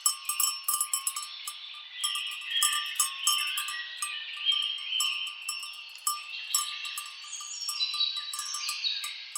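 Many birds singing and chirping at once, with frequent clanks of bells worn by grazing cattle.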